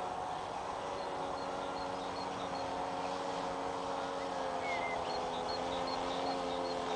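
Thunder Tiger T2000 RC model plane's engine droning steadily in flight, its pitch drifting slightly as it passes. A small bird chirps over it in two short runs of quick high notes.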